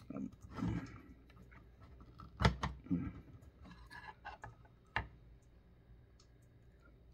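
Small plastic clicks and taps as a sword accessory is worked into the hand of a plastic anime figure, with two sharper clicks about two and a half and five seconds in. Faint murmurs of breath or voice come between the clicks early on.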